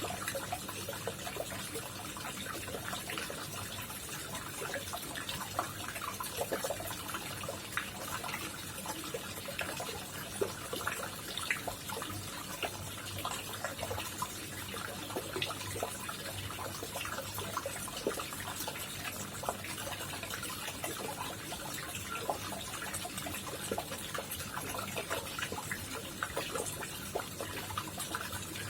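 Koi pond water trickling and splashing steadily, with many small splashes and drips.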